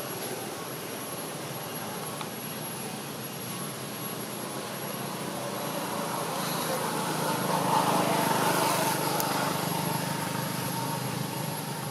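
A distant engine drone that swells to its loudest about eight seconds in, then eases off.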